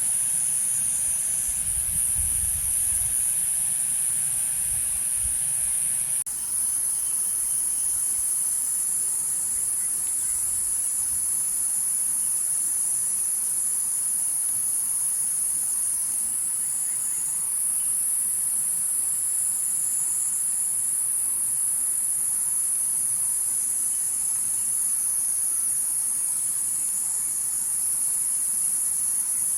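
Chorus of cicadas in summer forest, a steady, unbroken high-pitched drone. A faint low rumble underneath stops abruptly about six seconds in.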